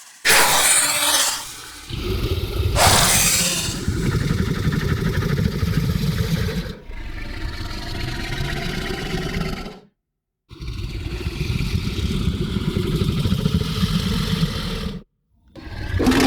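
Sound-design monster growling, calm and low: two short, breathy rasps near the start, then long, low, rough growls in several stretches, with two brief pauses.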